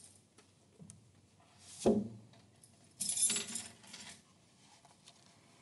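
Small handling noises: a single knock about two seconds in, then about a second of clinking, jangling rattle.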